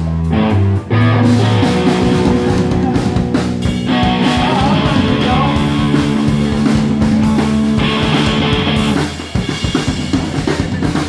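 Live rock band playing: guitar and bass notes over a drum kit, dropping to drums alone about nine seconds in.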